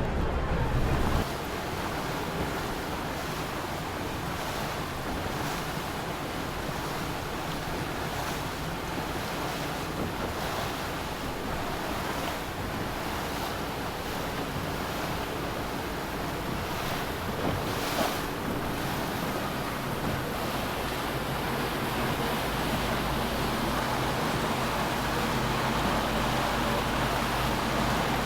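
Wind rushing over the microphone and water washing, with a steady low boat-engine hum that grows stronger in the second half and a single short click about two-thirds of the way through.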